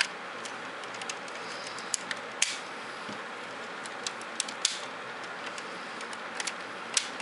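Plastic clicks as the spring-loaded missile launchers on a Transformers Robots in Disguise Optimus Prime fire-truck toy are folded back down onto its ladder. There are a few sharp, separate clicks spread over several seconds, over a steady background hiss.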